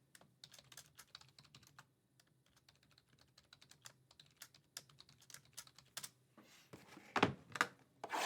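A quick run of light, sharp clicks and taps, with a few louder ones near the end.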